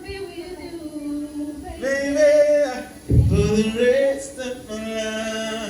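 A voice singing long held notes into a microphone, unaccompanied, with a low thump about three seconds in.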